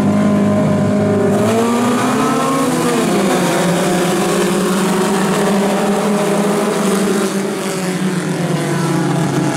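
A pack of mini stock race cars running together on a dirt oval, their engines blending into a steady drone. Between about one and a half and three and a half seconds in, several engine notes rise and fall as cars throttle up.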